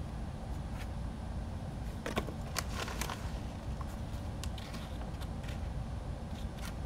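Scattered clicks and rustles of objects being handled on a workbench, with a short flurry of them about two to three seconds in, over a steady low hum.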